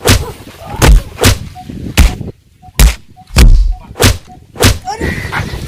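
Punch sounds in a staged fist fight: a run of about eight loud, sharp hits, irregularly spaced, each with a heavy low thud.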